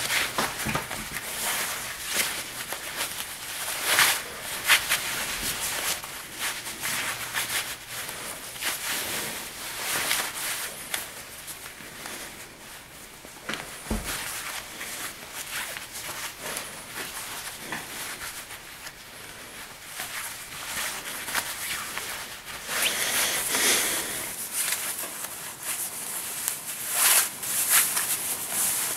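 Necktie being tied right at the microphone: cloth rustling, swishing and rubbing against a shirt collar in irregular strokes. The strokes are louder about 4 seconds in, around 23 seconds in and near the end, with a quieter spell in the middle.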